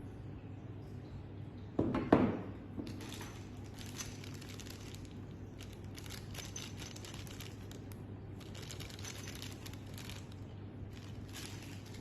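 A sharp knock about two seconds in, then long stretches of crinkling, rustling handling noise over a steady low hum.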